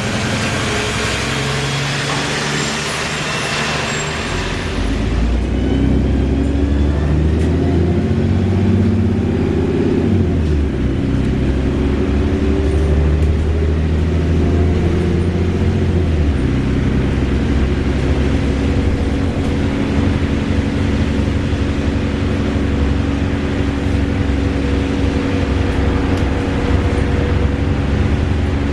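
Wright Gemini 2 VDL DB300 double-decker bus running with a loud whirring. The engine note steps in pitch a few times as it drives, getting louder about five seconds in.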